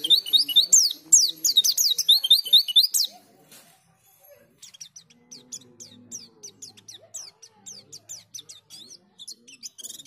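A white-eye (pleci) singing a rapid string of high, downward-slurred chirps that breaks off about three seconds in; softer chirping of the same kind starts again a second and a half later and carries on.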